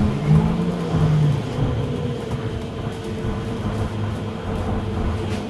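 Gas-powered MAN EcoCity bus heard from inside while driving: a low engine hum and road rumble with a steady high whine, and a brief deeper engine note in the first second or so.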